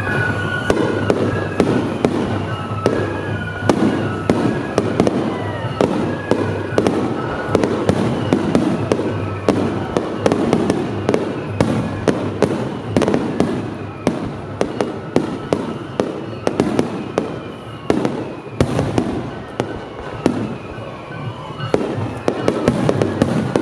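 Star mine fireworks barrage: shells bursting in quick succession, several sharp bangs a second overlapping one another.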